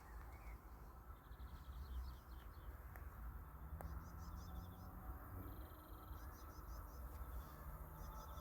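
Faint outdoor ambience: short, high chirping trills repeated every second or two over a steady low rumble.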